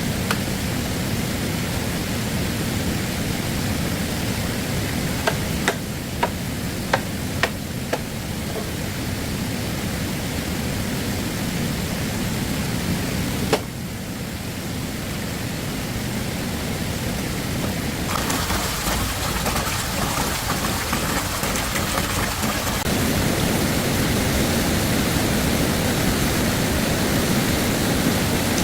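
Steady rushing of stream water. About a fifth of the way in there is a quick run of five sharp knocks, and a single sharper knock comes near the middle.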